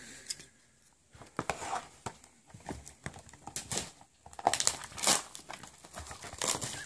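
Clear plastic shrink wrap being torn and peeled off a trading card box, crinkling and crackling irregularly. It starts about a second and a half in and gets busier in the second half.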